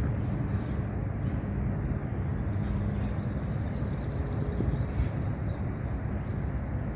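Steady low outdoor rumble with no speech, with a faint high tone about three to four seconds in.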